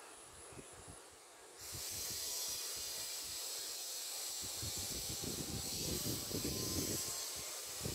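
A steady outdoor hiss that jumps louder about a second and a half in, with wind buffeting the microphone in the second half.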